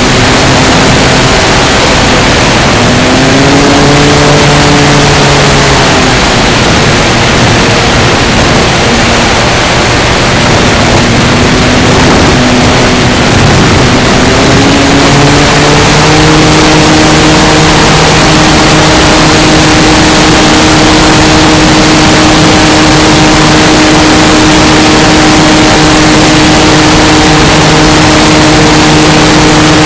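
Electric motor and propeller of an E-flite Carbon-Z Cessna 150 RC plane heard from a camera mounted on the plane, under loud, steady wind rush. The motor tone rises and falls with the throttle twice in the first half, then holds steady from about halfway.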